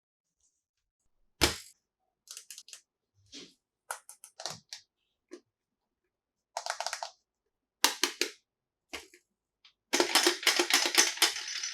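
Small plastic toy pieces being handled and set down: a sharp knock, then scattered clicks and taps, and a dense clattering rattle near the end.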